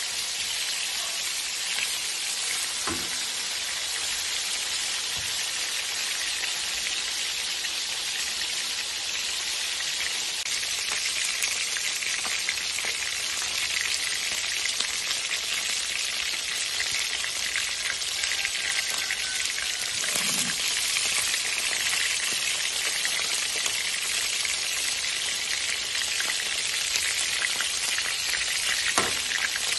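Fish steaks frying in hot oil in a pan: a steady sizzling hiss with fine spitting crackles, and a few soft knocks through it.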